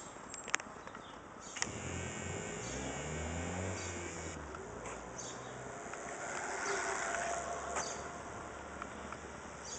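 Electric bicycle motor whining as the bike rides past, its pitch rising from about two seconds in and loudest about seven seconds in.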